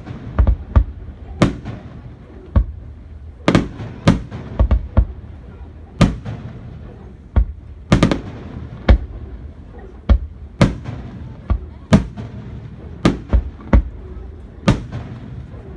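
Aerial fireworks bursting: an irregular string of sharp bangs, sometimes two or three in quick succession, each trailing off in a brief low rumble.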